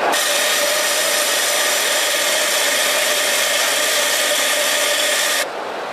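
Kingtex 2-needle 4-thread cylinder bed overlock machine running at high speed while sewing on a circular neckband: a steady whir with a fixed high pitch. It starts abruptly and cuts off about five seconds in.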